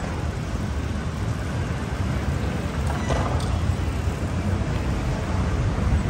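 Steady low rumbling outdoor background noise, with a few faint clicks about three seconds in.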